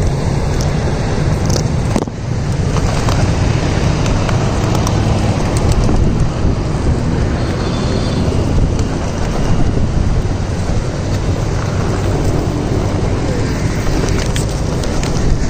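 Loud, steady wind buffeting the microphone outdoors, with a low rumble like road traffic underneath.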